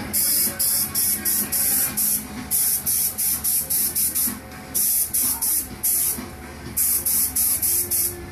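Electronic background music with a crisp, evenly pulsing hiss beat, about four hits a second, stopping briefly a few times.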